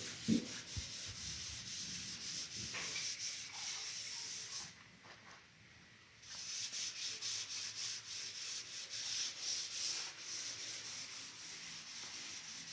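Rhythmic rubbing or scraping strokes, several a second, like hand sanding on a hard surface, with a short pause about five seconds in.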